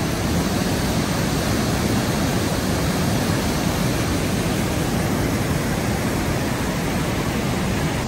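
Steady rushing of a waterfall on a creek, an even, loud wash of falling water with no change.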